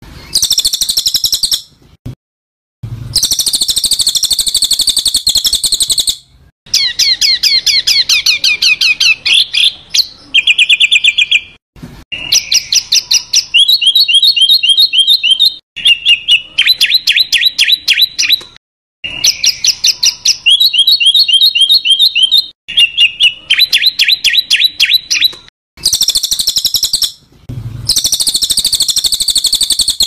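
Songbird giving harsh, buzzy calls and fast rattling trills in phrases a second or a few seconds long, separated by short silent gaps. The same run of phrases comes round again, as in an edited, looped recording.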